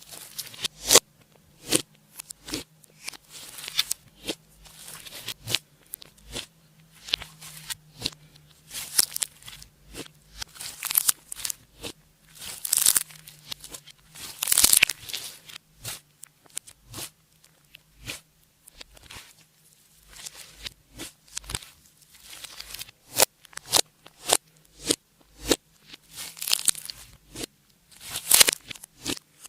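Clear slime being worked by hand: irregular sticky clicks, pops and crackles as it is squeezed, stretched and folded, with a few louder squelching bursts about halfway through.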